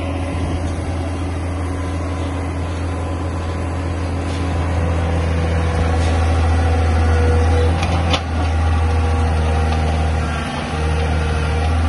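Tata Hitachi EX200 Super crawler excavator's diesel engine running steadily. It grows louder about five seconds in as the boom and bucket are worked, with two brief dips later on.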